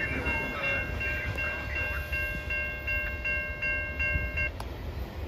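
Railway crossing bell ringing at an even pace of about two to three strokes a second, then cutting off suddenly near the end as the crossing clears. Under it is the low rumble of a freight train's autorack cars rolling away.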